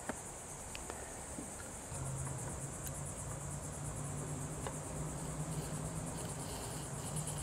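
A high, steady insect trill with a fast pulsing rhythm, typical of a cricket. A low hum comes in about two seconds in, and there are a few faint clicks.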